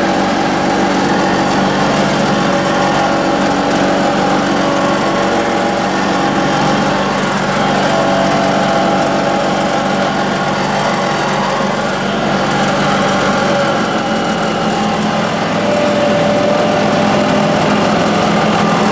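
John Deere X585 garden tractor's V-twin engine running steadily, heard from inside the tractor's cab, its pitch shifting slightly around the middle.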